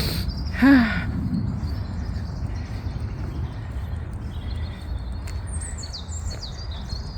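Small birds chirping and singing with short high calls, some gliding in pitch, coming in about halfway through, over a steady low rumble.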